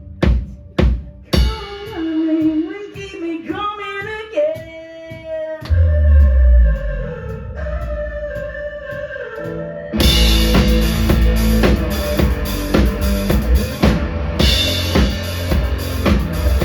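Live rock band playing loudly. Evenly spaced drum hits open it, then a melodic line slides in pitch over sparse accompaniment, a heavy low note lands about six seconds in, and the full band with pounding drums kicks in about ten seconds in.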